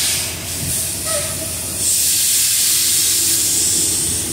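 Steady hiss of air in a semi-truck cab, louder from about two seconds in, over the low hum of the idling engine.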